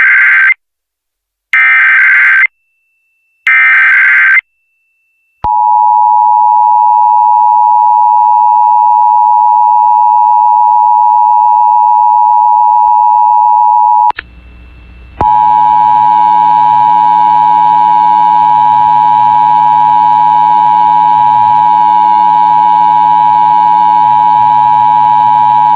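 Emergency Alert System test tones over FM radio: the SAME header's digital data bursts, about a second each, sent three times, then the steady two-tone EAS attention signal. The attention tone drops out for about a second near the middle and comes back with fainter wavering audio underneath it.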